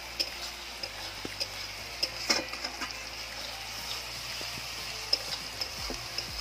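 Onions and ginger-garlic masala frying in oil in a metal kadai, sizzling steadily, while a metal spatula stirs and scrapes the pan with scattered clicks, the loudest about two seconds in.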